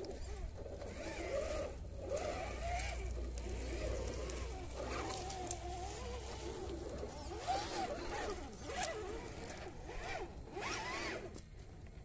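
Electric motor and drivetrain of an RC scale crawler truck whining, the pitch rising and falling with the throttle as it crawls over mud and rocks, with a few sharp clicks.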